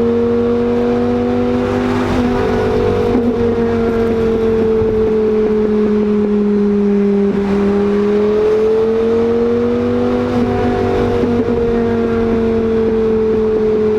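Lamborghini Gallardo's V10 engine running through a new custom-made exhaust at a steady cruise. The engine note sinks slowly, rises again about ten seconds in, then eases off.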